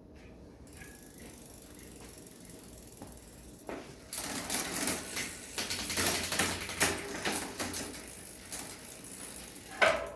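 Mountain bike wheel being refitted to the bike: quiet handling at first, then a dense run of metallic clicks and rattles from about four to eight seconds in, and a single knock near the end.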